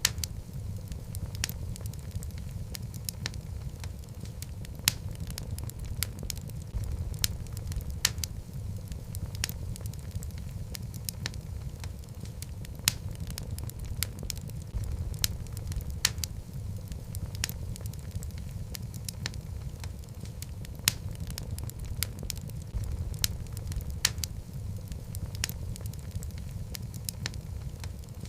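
Wood fire burning in a fireplace: a steady low rumble of flames with frequent sharp crackles and pops from the burning logs, several a second.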